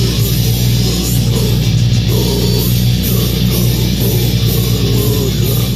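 Death metal music with heavily distorted guitars and bass, and a man's low, guttural growled vocal over it.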